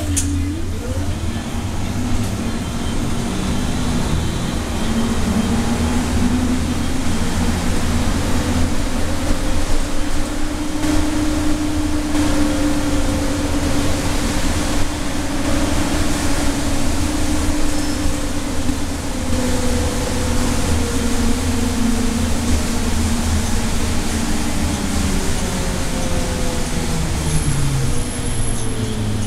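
Cabin sound of a 2012 Nova LFS city bus under way on wet road. The engine and drivetrain whine climbs in pitch over the first few seconds as the bus gathers speed, holds steady, then falls over the last several seconds as it slows, over a constant low rumble and tyre hiss.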